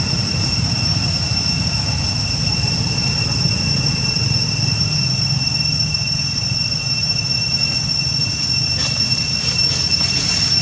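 Steady high-pitched drone of cicadas over a low rumble, with faint rustling of dry leaves near the end.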